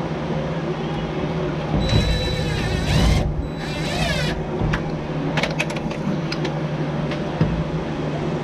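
A power drill runs in two short bursts, the first about a second and a half long and the second shorter, with its motor whine rising and falling in pitch. A few sharp metallic clicks follow, over a steady low hum.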